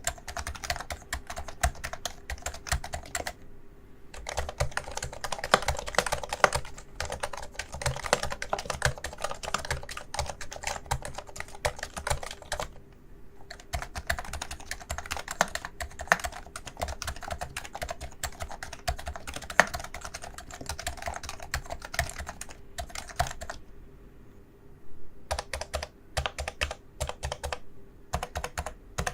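Typing on a Realforce keyboard with Topre electro-capacitive switches: a fast, continuous run of keystrokes. The typing pauses briefly about four, thirteen and twenty-four seconds in.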